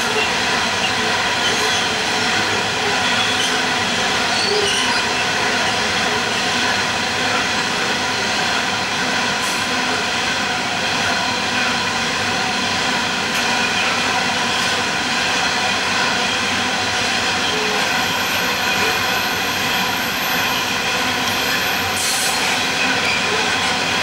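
Loaded coal hopper wagons rolling past on a curved track, the wheels running loud and even with a steady squeal against the rails.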